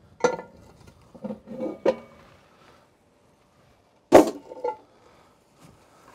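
Cast-iron Dutch oven lid being hooked with a metal lid lifter and lifted off: a clink, then a few metal knocks with brief ringing in the first two seconds, and one loud clank about four seconds in.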